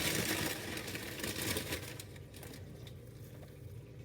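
Rice Krispies cereal being poured into a bowl, with the crinkle of the cereal bag: a dense rustle for the first half second, then scattered small crackles and ticks.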